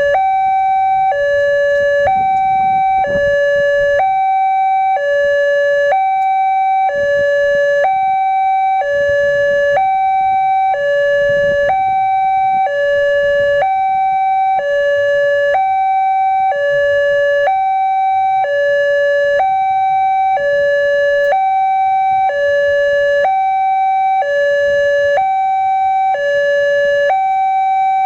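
Electronic two-tone warning siren of an Indonesian railway level crossing, swapping steadily between a higher and a lower tone about once a second. It is the crossing alarm that sounds while a train is approaching.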